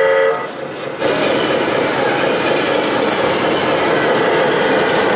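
Electronic air horn of a radio-controlled Scania truck model's sound module, a short two-tone blast that ends within the first half-second. From about a second in, a loud steady rushing noise follows.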